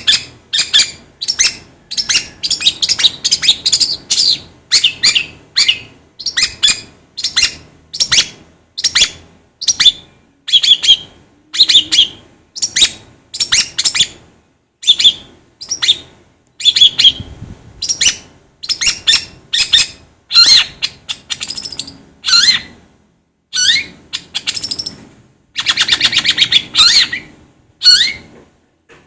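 Long-tailed shrike (cendet) song: short, sharp, high notes delivered in quick runs, one run after another with brief gaps, some notes sliding in pitch.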